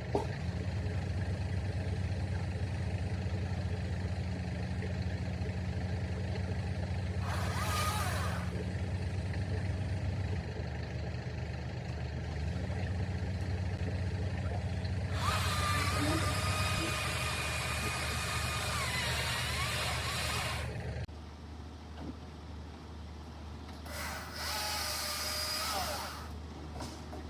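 Tree-removal machinery: a heavy engine running steadily, with three bursts of a higher-pitched, whining power tool over it. The engine cuts out about three quarters of the way through.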